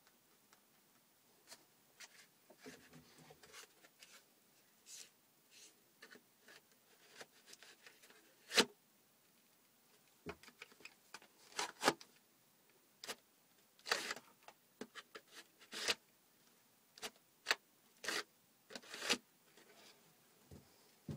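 Handling of a homemade cardboard toy pistol: scattered light clicks, taps and rubs of cardboard parts being fitted together or taken apart, irregularly spaced, with a few sharper knocks.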